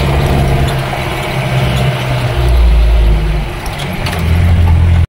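Off-road safari jeep's engine running under way, heard from inside the jeep. Its note drops to a lower, louder pitch about halfway through and shifts again near the end as the jeep comes onto a rough dirt track.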